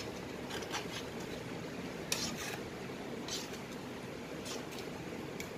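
Metal spatula stirring thick tomato sauce in a stainless steel frying pan: short scrapes and clinks against the pan at irregular moments, the loudest a little after two seconds in, over a steady hiss.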